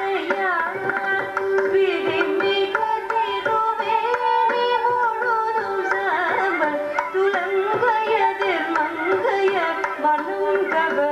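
Live Carnatic music: a woman singing an ornamented, gliding melodic line, accompanied by mridangam strokes and violin.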